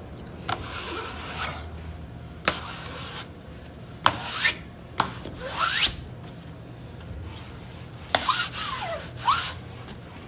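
A cloth rubs and wipes across shiny vinyl wallpaper in about half a dozen separate swishing strokes. Some strokes give a short squeak that slides up or down in pitch.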